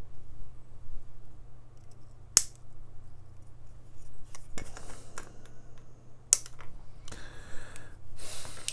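Flush side cutters snipping off the excess legs of 1N4007 diodes on a circuit board: a few sharp snips, the loudest about two seconds in and another about six seconds in, followed by rustling as the board is handled near the end.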